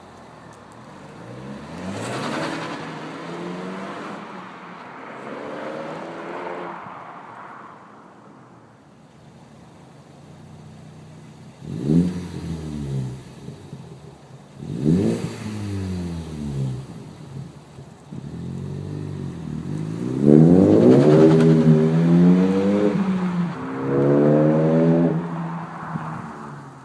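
Ford Focus ST's turbocharged 2.0-litre four-cylinder revved repeatedly through its exhaust. A couple of slower revs come first, then two quick, sharp blips, then longer and louder revs near the end.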